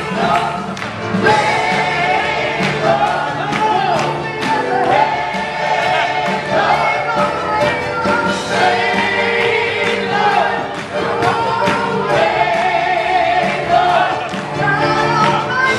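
Live gospel worship music: a woman leads the song on a microphone with a group singing along, over a band with drums and hand-clapping.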